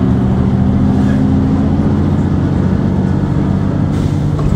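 Mercedes-Benz CapaCity articulated bus, its OM 457 hLA six-cylinder diesel idling while the bus stands still: a steady low hum with a few held tones.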